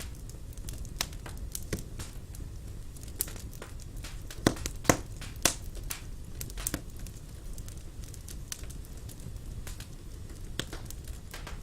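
Wood fire crackling in a fireplace: irregular sharp pops and snaps, the loudest few about halfway through, over a steady low rumble from the burning logs.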